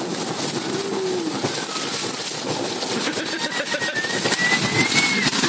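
Heavy rain, with hail by the uploader's tags, pelting a parked car's roof and the ground: a dense hiss full of rapid pattering impacts that grows heavier and louder in the second half.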